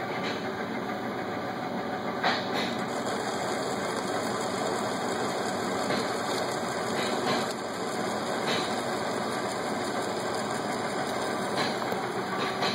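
Hardinge HC lathe running, a steady mechanical whir with occasional short clicks through it.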